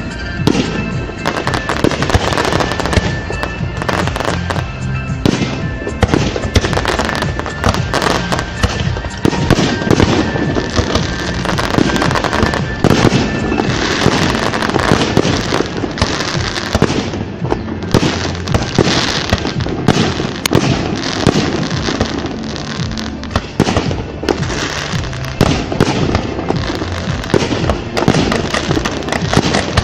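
Fireworks display: aerial shells bursting in a rapid, near-continuous string of bangs and crackles, with music playing underneath.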